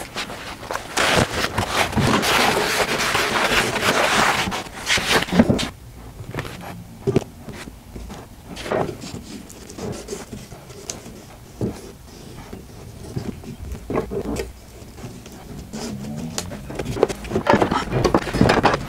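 Wooden boards and metal pipe clamps handled on a workbench during a glue-up: a rough scraping, sliding noise for about four seconds, then scattered knocks and clicks of wood and clamp parts being set in place.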